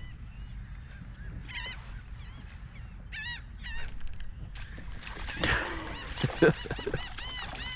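Birds calling in short, repeated honking squawks, scattered at first and then in a fast run of about four a second near the end. Around six seconds in comes a splashing burst, the loudest sound here, as a released speckled trout thrashes at the surface.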